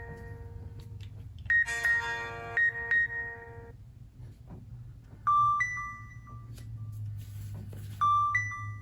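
Nokia C7-00 ringtones playing. A bell-like multi-note chime pattern sounds once more, then a different tone, a short two-note rising ding, plays twice about three seconds apart.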